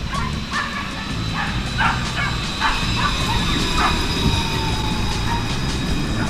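Alstom Citadis 302 low-floor electric tram running past close by, with a low rumble of wheels on rail and a thin electric whine that slowly falls in pitch.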